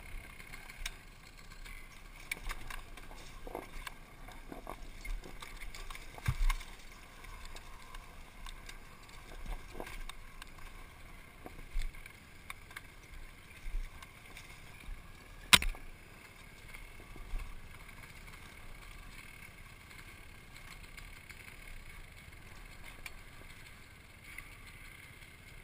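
Dirt bike riding rough singletrack: a faint steady engine hum under scattered knocks and rattles from the bike over the ground, the loudest a sharp knock about fifteen seconds in.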